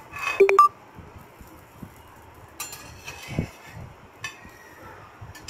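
Spatula clinking against a cast-iron pan: a quick run of sharp ringing clinks about half a second in, then softer knocks a couple of seconds later.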